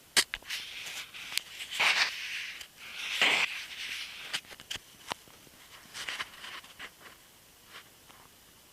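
Drainage pipe giving off irregular sharp clicks and ticks, with two short hissing bursts about two and three seconds in, thinning to a few faint ticks near the end. The uploader takes this to be rainwater from the roof collecting and running in the pipe.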